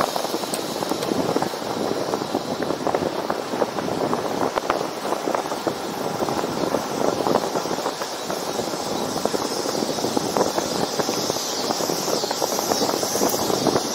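Wind and tyre noise of a road bicycle riding at speed: a steady, rough, crackling rush with a thin high hiss above it.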